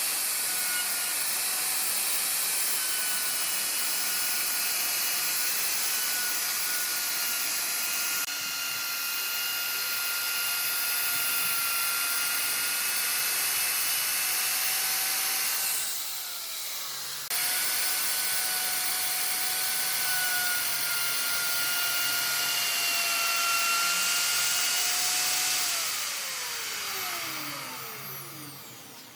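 Electric power tool motor running at steady speed with a high whine and hiss. It is switched off about halfway through, its pitch falling as it spins down, then restarted. Near the end it is switched off again and coasts down with a long falling whine.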